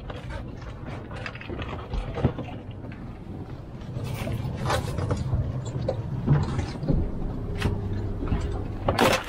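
Scattered clicks and knocks of a round wire crab pot being handled at a boat's gunwale, with one louder knock near the end, over a steady low rumble.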